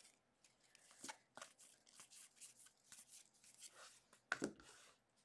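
Faint flicks and slides of trading cards as a stack of football cards is thumbed through by hand, card after card, in an irregular series of short swipes. The loudest swipe comes about four seconds in.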